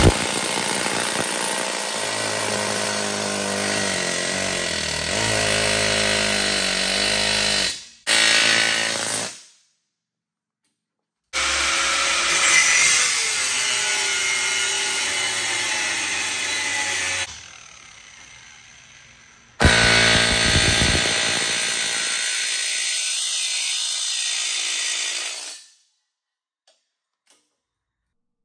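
Pneumatic air chisel hammering against steel, peeling a plate off a chopper frame whose welds have been cut through with a cutting disc. It runs in three bursts of about six seconds each, starting and stopping abruptly.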